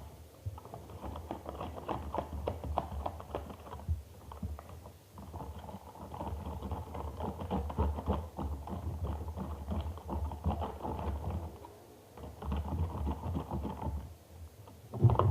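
Sticky liquid-glue slime mixture being worked, with fast wet clicking and tapping that pauses briefly a few times. The mix is not setting well with this liquid glue.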